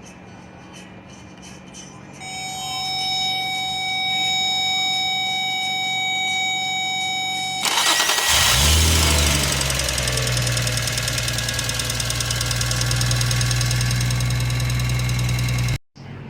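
A steady high electronic tone sounds for about five seconds, then the 2004 Infiniti G35's 3.5-litre V6 cranks briefly, catches within about a second, flares up and settles into a steady idle until it cuts off suddenly near the end.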